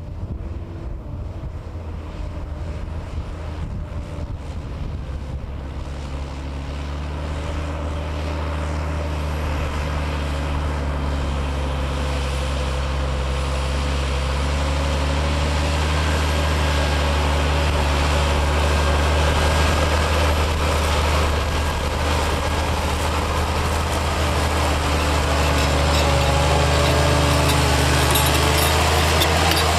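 Massey Ferguson 7495 tractor's diesel engine running under load while pulling a plough, a steady drone that grows gradually louder.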